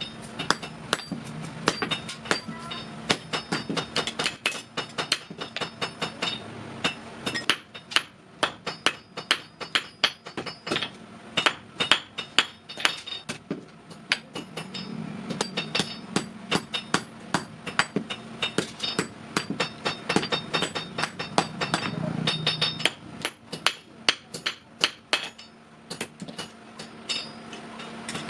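Rapid, steady hand-hammering on sheet metal, several ringing strikes a second: a blacksmith beating out a metal kadai.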